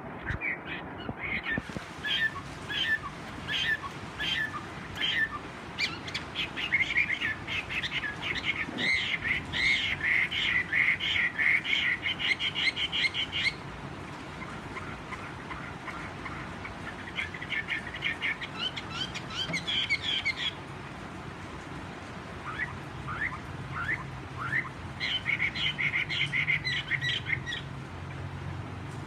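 Chinese hwamei (melodious laughingthrush) singing in bouts of rapid, repeated notes, a long bout in the first half and two shorter ones later, with pauses between. The owner says its voice is slightly hoarse.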